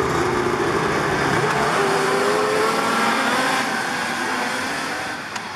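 A pack of racing snowmobiles at full throttle off the start, their engines rising in pitch as they pull away. The sound fades after about three and a half seconds.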